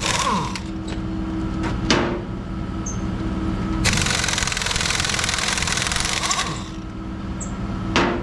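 Truck engine idling steadily, with a broad hiss that cuts in and out and two sharp metallic knocks, one about two seconds in and one near the end.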